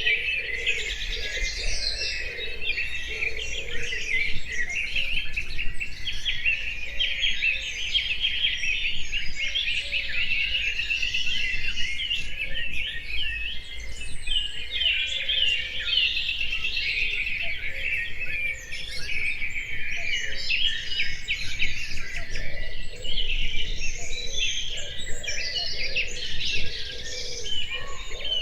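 Several small birds singing at once in a dense, continuous chorus of quick chirps and trills.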